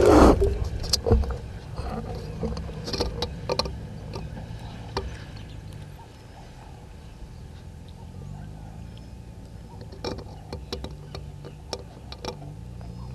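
Knocks, scrapes and rustling from a vervet monkey handling the camera housing right at the microphone: a loud jolt of knocks at the start, then scattered fainter taps and rubbing. A low steady hum comes in about eight seconds in.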